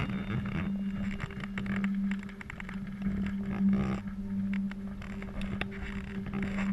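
A steady low mechanical hum, like a running engine, with scattered clicks and rustles over it.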